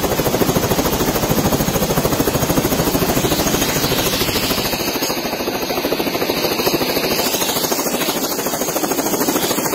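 Helicopter running, its rotor blades beating in a rapid, steady rhythm.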